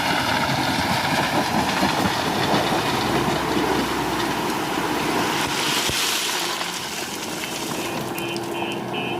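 Diesel engine of a JCB 3DX Super backhoe loader working under load, a steady rattling, clattering machine din. Near the end a reversing alarm starts beeping rapidly.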